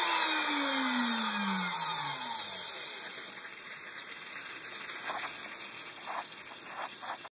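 Bosch Colt router serving as a CNC mill spindle, switched off and spinning down: its high whine falls steadily in pitch and fades over about two and a half seconds. A faint hiss follows, with a few short soft sounds near the end.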